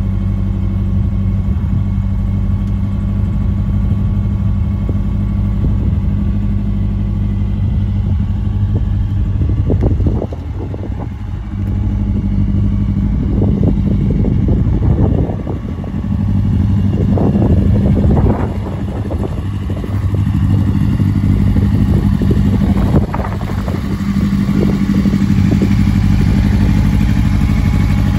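Hillman Imp race car's rear-mounted four-cylinder engine running at a steady idle through its side-exit exhaust, with the throttle blipped several times in the middle, the revs rising and dropping back each time.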